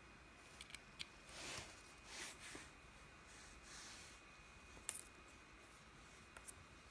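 Near silence, with a few faint clicks and soft rustles over a faint steady high-pitched tone.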